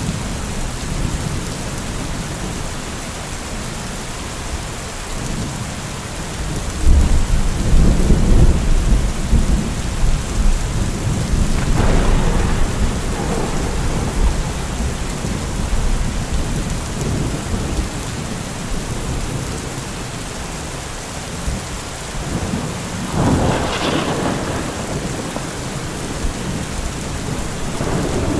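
Steady heavy rain falling, with rolling thunder: a long deep rumble builds about a quarter of the way in, then sharper claps come near the middle and again near the end.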